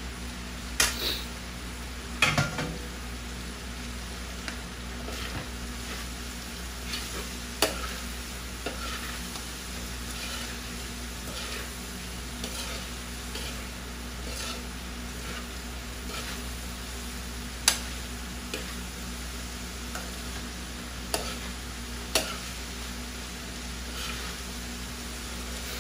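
Metal spoon stirring diced pork offal and bell peppers in a sizzling metal frying pan, with a few sharp clinks of the spoon against the pan.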